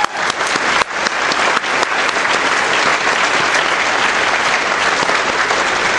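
Large audience applauding: a few separate claps at first quickly fill into dense, steady applause.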